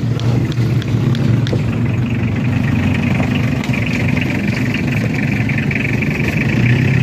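An engine idling steadily. A steady high hiss joins about three seconds in.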